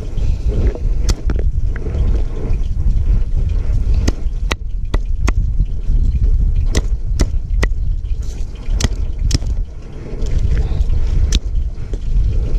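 Garlic cloves snapping off the bulb and being pressed on a wooden chopping board, about ten short sharp clicks and knocks at uneven intervals, over a steady low rumble.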